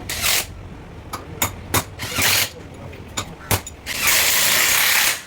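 Ratcheting, clicking metal sounds of workshop tools and parts being handled, a series of short sharp clicks and rattles, then a steady high hiss lasting about a second near the end.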